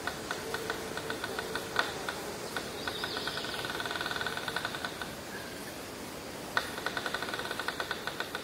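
Runs of quick, rhythmic ticks, each with a faint ringing pitch, fastest around the middle, stopping for about a second and a half and then starting again about two-thirds of the way in, over a steady background hiss.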